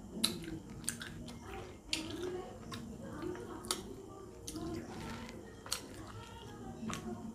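Close-up eating sounds: wet chewing and lip smacks with many sharp clicks, as fingers work food out of a bowl of chicken curry.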